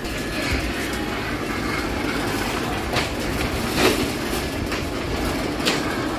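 Wire shopping cart rolling over a tiled supermarket floor, its wheels and basket rattling steadily, with a few sharper clanks.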